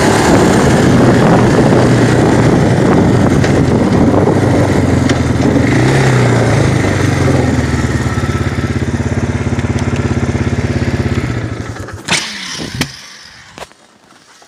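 ATV engine running under way, settling to a steady pulsing idle about eight seconds in, then switched off about eleven seconds in. A couple of sharp knocks follow.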